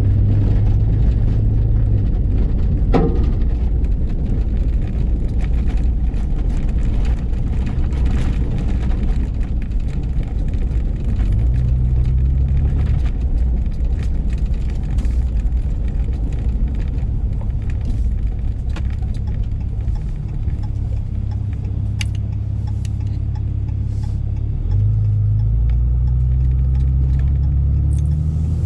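Pickup truck driving on the road, its engine running steadily under road noise, with the low engine note stepping up in pitch about 11 seconds in and again about 25 seconds in.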